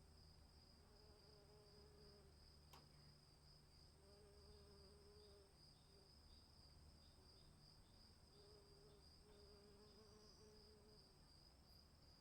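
Faint night chorus of crickets: a steady high trill, with another insect chirping in short quick pulses over it. A lower drawn-out buzz comes and goes, and there is a single click about three seconds in.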